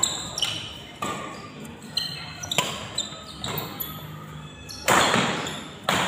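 Badminton rally: rackets strike the shuttlecock in a string of sharp hits, roughly once a second, with sports shoes squeaking on the court between them. The hardest hit comes about five seconds in and rings on in the hall.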